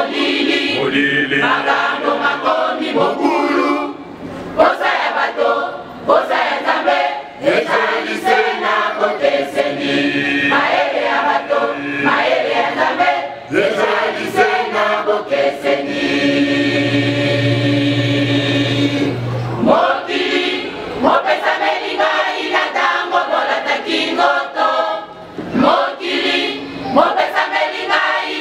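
A mixed choir of women's and men's voices singing a hymn together, with one long held chord about two-thirds of the way through.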